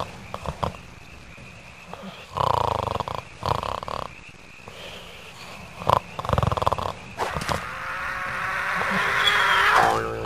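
Snoring: loud, rasping breaths about every four seconds, then a long snore that builds in loudness and breaks off in a buzzing rattle near the end.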